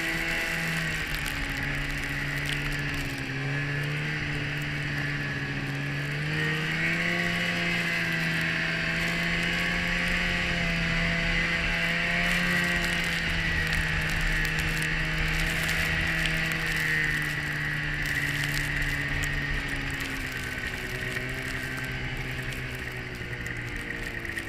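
Polaris 550 snowmobile's two-stroke twin engine running under way, its pitch dipping about three seconds in, rising about six seconds in and easing off near the end, with a steady high whine over it.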